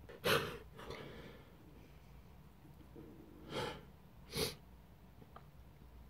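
A man sneezing and sniffing with ground black pepper dust in his nose: a sharp, loud burst just after the start, then two shorter sharp bursts about a second apart in the middle.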